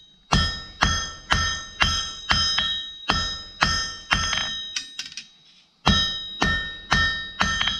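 Blacksmith's hammer striking on an anvil while forging, about two blows a second, each blow ringing out with the same bright metallic tone; the hammering stops for about a second just past the middle, then resumes at the same pace.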